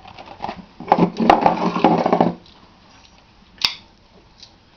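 Mail package being torn open by hand: a loud ripping, crinkling stretch of packaging for about a second and a half, then quieter handling with a couple of sharp clicks.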